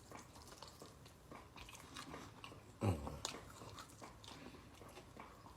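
A person chewing and biting into chicken wings: faint, wet mouth smacks and small clicks, with one louder moment about three seconds in.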